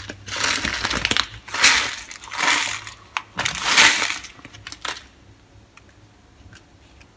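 Coarse salt crystals pouring from a plastic bag onto pork belly skin, with the bag crinkling, in several rustling bursts that stop about five seconds in.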